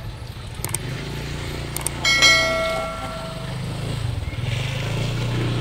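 Street traffic: a vehicle engine running with a steady low hum, and a single bright bell ring about two seconds in that fades out over a second or so.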